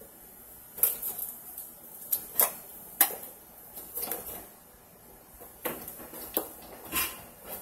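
Scissors cutting through packing tape on a small cardboard box: about eight sharp snips and crackling rips, irregularly spaced, as the heavily taped package is forced open.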